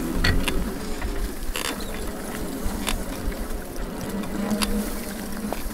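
Bicycle ridden over a bumpy grass track: a low rolling rumble with irregular clicks and rattles from the bike and the rods and bag strapped to it, over a faint steady hum.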